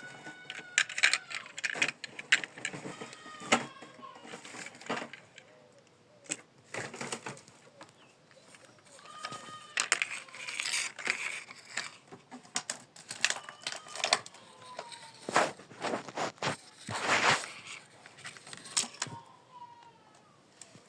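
Small hard plastic toy construction vehicles being handled: irregular clicks, knocks and clatter, with a few short high chirping tones between them.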